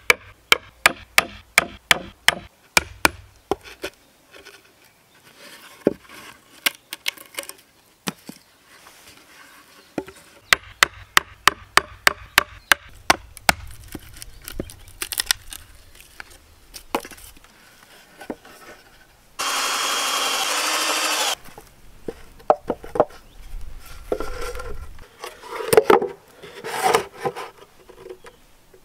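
Hammer striking a wood chisel in quick runs of blows, about four a second, chopping a round hole through an OSB board. A little past the middle a loud steady noise lasts about two seconds.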